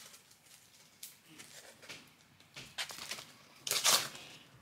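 A sheet of sandpaper being torn by hand: a few short ripping and crinkling sounds, the longest and loudest near the end.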